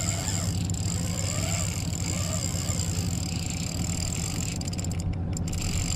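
Boat motor running steadily: a constant low hum with a faint high whine over it.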